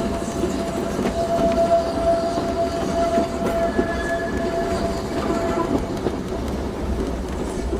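Furka Steam Railway train running along the track, its carriages rumbling and clattering over the rails. A steady ringing tone is held over the running noise and stops about six seconds in.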